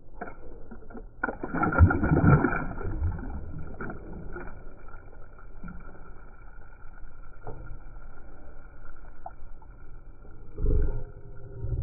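Knocks, clunks and handling noise in a small aluminium boat, loudest for a couple of seconds near the start and again near the end, over a steady faint high hum.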